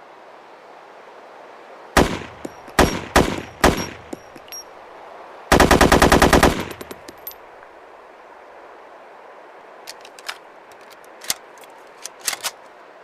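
AKMS 7.62×39 mm assault rifle firing over a steady hiss. It fires four single shots about half a second apart, then a rapid full-auto burst of about a dozen rounds lasting about a second. Several lighter, sharp cracks follow near the end.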